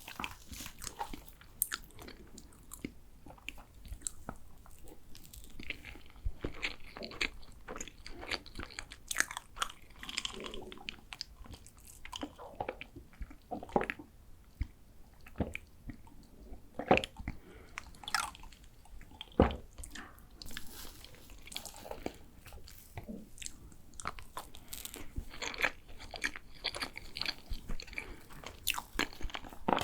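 Close-miked chewing and biting of tiramisu cake: irregular wet mouth sounds with scattered sharp clicks and smacks.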